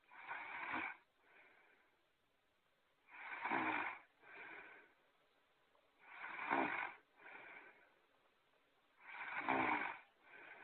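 Cartoon-style snoring sound effect looping steadily: four loud snores about three seconds apart, each followed by a softer second breath.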